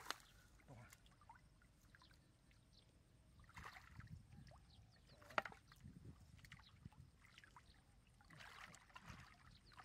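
Hands groping through shallow muddy water and mud, giving faint, scattered sloshes and splashes, the sharpest a little over halfway through.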